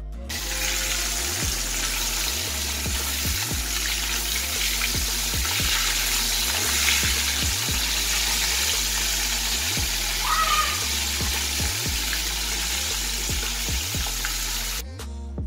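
Whole fish rubbed with salt and turmeric frying in hot oil in a steel kadai, a loud, steady sizzle that starts as the fish goes in and cuts off suddenly near the end. Background music with a repeating bass beat plays underneath.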